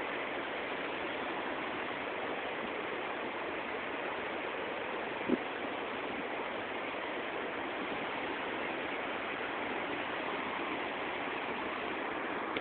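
Waterfall rushing steadily, a constant hiss of falling water, with one short thump about five seconds in.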